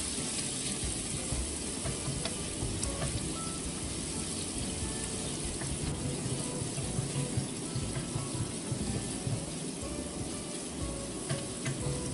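Chopped onions and garlic sizzling steadily in hot oil in a frying pan as they sauté, stirred with a wooden spatula that gives a few light knocks against the pan.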